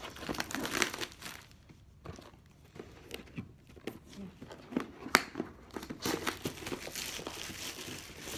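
Packaging crinkling and rustling as a boxed Christmas activity kit is opened and its contents handled, with a sharp click about five seconds in.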